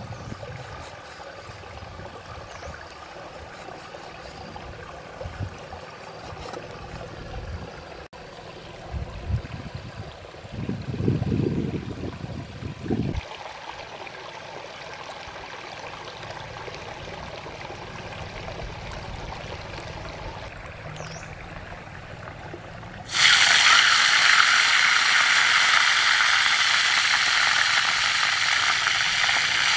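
Spiders sizzling and bubbling in a hot clay pan over a wood fire: a loud, dense, steady hiss that starts suddenly about three quarters of the way in. Before it there is a quieter stretch of a stream running, with a few soft handling knocks.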